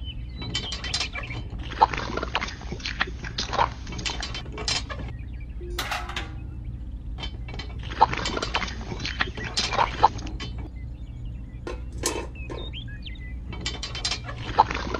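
Clicks, scrapes and light clinks of a small plastic bucket and a toy concrete mixer being handled, coming in three bunches, over a steady low hum.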